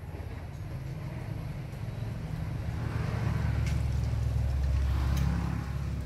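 A small engine running at low revs, a steady low hum that swells louder in the middle and then eases off.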